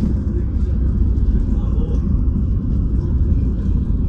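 Steady low rumble of a moving bus, engine and road noise, with faint voices over it.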